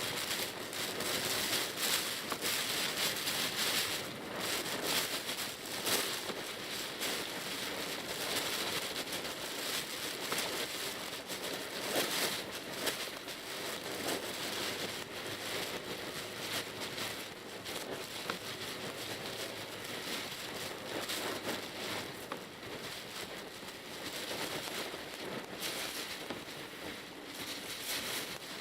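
Rain spattering on a car's windshield and body, heard from inside the cabin: an even hiss broken by many irregular crackling taps, over faint vehicle noise.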